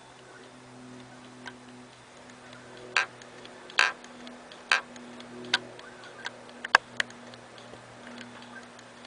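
Computer that has been dropped making irregular sharp clicks over a steady low hum. The clicks come at uneven intervals, a few louder ones bunched in the middle and a quick cluster near the end; the noise is a symptom of damage from the drop.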